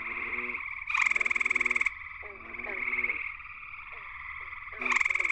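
Gray treefrog (Hyla versicolor) giving a loud musical trill of about a second, starting about a second in, and starting another near the end. Underneath runs a steady chorus of more gray treefrogs trilling, with short lower calls of other frogs repeating beneath it.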